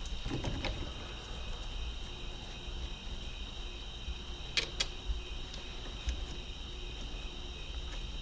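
Steady high trill of crickets, with a few sharp clicks, two close together a little past halfway.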